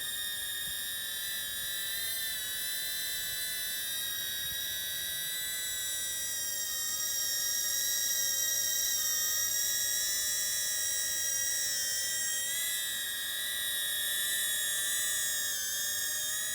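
Caddx Protos FPV whoop in flight: its motors and propellers give a high-pitched whine of several steady tones that drift slightly up and down with throttle. It grows a little louder about halfway through and again near the end.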